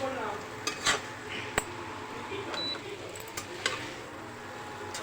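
Spatula stirring boiled cauliflower and potatoes in spice paste in a kadai, scraping with a few sharp clinks against the pan and a faint sizzle underneath.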